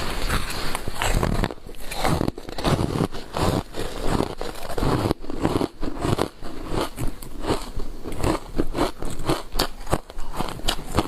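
Ice coated in matcha green tea powder being bitten and chewed: a rapid, irregular run of crunches and cracks.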